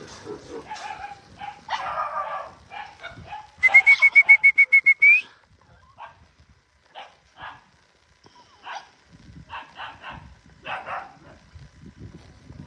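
Puppies yipping and whimpering in short calls. About four seconds in, a loud rapid run of high pulses, about eight a second, holds one pitch for a second and a half and rises at the end.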